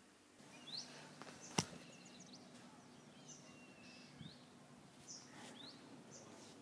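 Faint ambience with a few short, rising bird chirps over a steady low hum, and one sharp click about a second and a half in.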